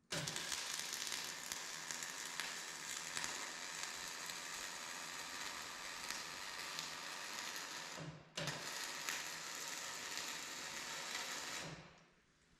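Electric welding arc crackling and sizzling steadily as a weld bead is laid on a cracked steel feed roller arm. The arc is struck at once, breaks off for a moment about eight seconds in, then restarts and stops near the end.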